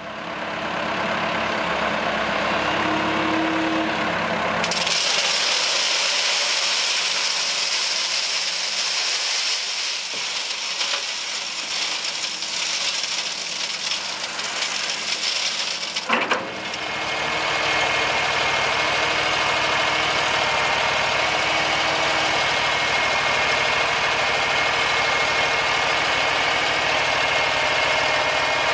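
Machinery engine running steadily, with a long stretch of loud gritty hiss as sand and gravel pour from a telehandler bucket into a mixer hopper. A sharp click comes about sixteen seconds in. After it the engine runs on steadily, with a thin high whine over it.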